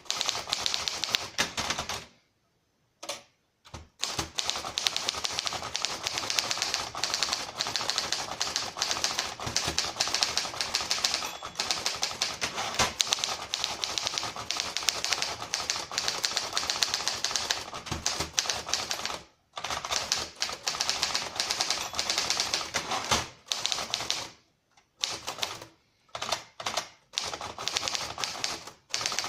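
1939 Triumph Standard 12 manual typewriter being typed on: a rapid run of type bars striking the platen, in long bursts broken by short pauses.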